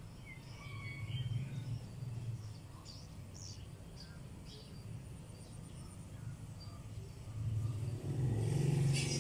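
Low engine rumble, like a motor vehicle running close by, growing louder about eight seconds in.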